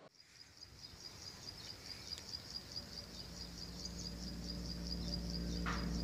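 An insect chirping in a rapid, even train of short high chirps, about five a second. From about halfway, soft ambient music with a low drone swells in beneath it.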